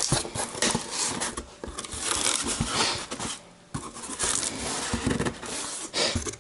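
Cardboard box and packaging being opened and handled by hand: rustling and scraping with small knocks, and a brief pause about three and a half seconds in.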